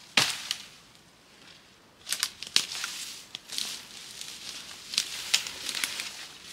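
A single axe strike on a felled pine just after the start. About two seconds in, a run of crackling and rustling begins: dry pine branches and needles being pushed and dragged through the undergrowth, with twigs snapping.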